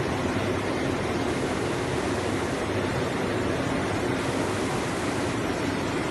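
Six-colour flexographic printing machine running, a steady, even mechanical noise with a low hum under it.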